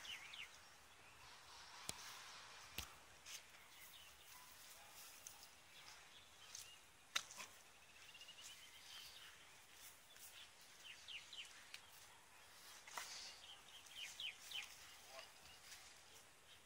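Faint outdoor ambience with scattered bird chirps and a few sharp, isolated clicks, the loudest about seven seconds in.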